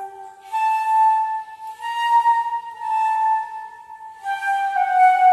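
Flute playing a slow melody of held notes, about a second each, with a breathy hiss at the start of each note.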